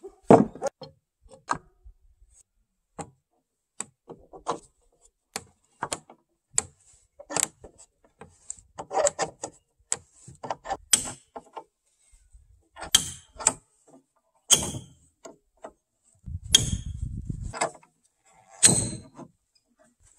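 A steel bar clamp being fitted and tightened across a timber joint: irregular clicks and knocks of the bar and its sliding jaw against the wood, with the screw handle being turned. Several of the clicks in the second half have a short metallic ring.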